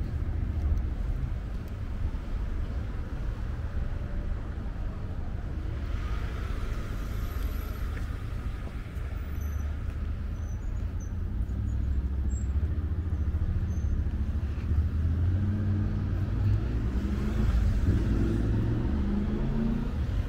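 City street traffic: cars passing, heard as a steady low rumble that grows a little louder near the end.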